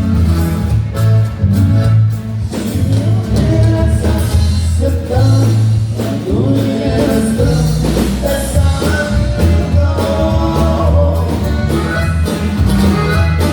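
Norteño band music: plucked strings over a pulsing bass line with a steady beat.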